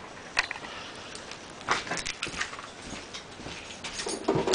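Scattered clicks, knocks and rattles of hands handling a lawn mower's handlebar and cable, with a louder rustle and clatter near the end; the engine is not running.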